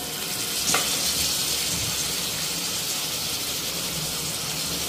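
Raw boneless chicken pieces sizzling in hot oil on a bed of frying onions and green chillies. The sizzle grows louder just under a second in, with one light knock, as the chicken goes in.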